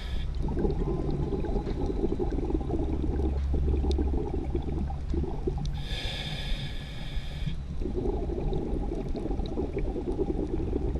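Scuba diver breathing through a regulator. A hissing inhale sounds right at the start and again about six seconds in, each followed by a long bubbling exhale.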